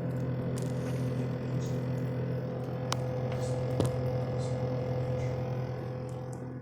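GE refrigerator running with a loud steady hum: a low drone with a clear higher tone over it, and a couple of faint ticks in the middle. It is an abnormal noise that two repair attempts have not cured.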